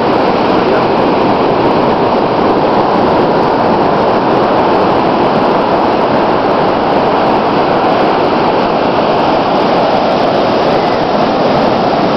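Steady roar of ocean surf mixed with wind on the microphone, an even noise with no single waves standing out.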